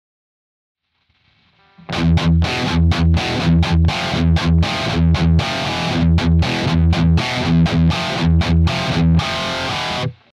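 Electric guitar played through a Kemper Profiler amp with its Pure Cabinet feature switched on: a rhythmic, distorted riff of muted low chugs and accented chords. It starts about two seconds in and cuts off abruptly near the end.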